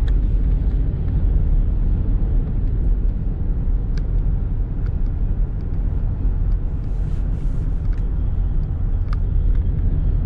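Steady low drone of a vehicle driving on the road, heard from inside the cab, with a couple of faint clicks.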